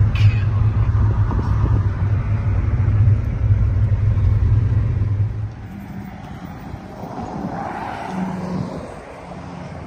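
Steady low rumble of a Nissan sedan's engine and road noise heard from inside the moving car, cutting off about five and a half seconds in to quieter open-air ambience, where a passing vehicle rises and fades.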